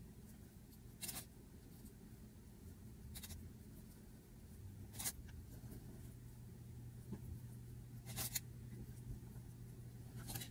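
Fabric being handled: several short, faint rustles as layers of jersey and mesh are shifted and pinned, over a low steady hum.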